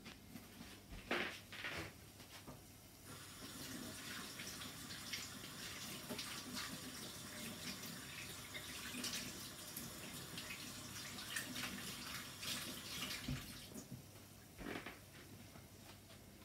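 Elephant foot yam koftas deep-frying in hot oil in a kadhai: a steady crackling sizzle that swells about three seconds in and dies down near the end. A couple of light knocks come just before the sizzle and one more near the end.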